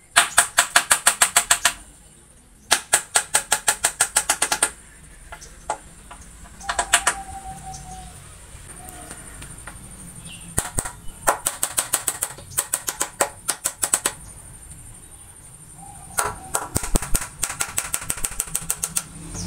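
Bursts of rapid sharp clacks from a woodworking tool striking wood, about six a second, in several runs of one to three seconds with short pauses between.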